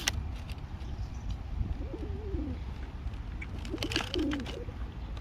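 Pigeons cooing: two low, rolling coos about two seconds apart, with a few faint clicks over a steady low rumble.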